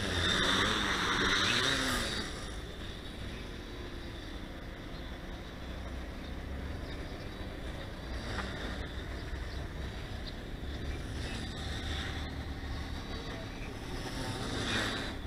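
Tricopter's electric motors and propellers whining as it flies past close by, the pitch rising and falling with throttle, then dropping to a faint drone as it moves away, with wind rumbling on the microphone. Near the end the whine swells again briefly.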